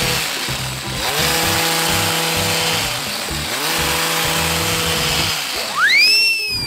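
Two-stroke petrol hedge trimmer revving up and holding high revs while cutting, easing off between cuts about three times. Near the end comes a whistle-like sound effect that swoops up and then slides down.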